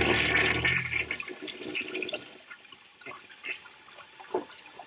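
Toilet flushing: a loud rush of water that dies away over about two seconds, followed by a few faint knocks. A low engine hum runs under the first second and stops abruptly.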